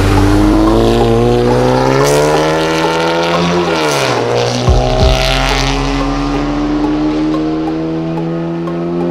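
Volkswagen Golf GTI Mk7.5's turbocharged 2.0-litre four-cylinder, heard through a VVS titanium exhaust, accelerating past. The pitch climbs, dips sharply about four seconds in as the car goes by, then climbs slowly again as it pulls away, getting a little quieter.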